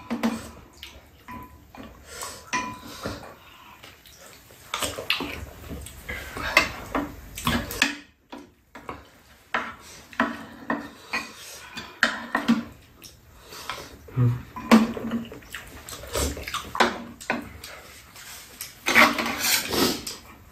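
Spoons clinking and scraping against ceramic bowls on a metal serving tray, with eating sounds between the clicks.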